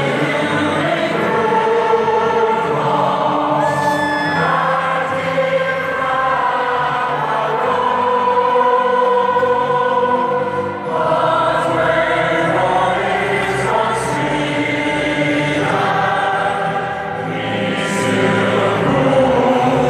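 A choir singing with music, in long held notes, played through a stadium PA system.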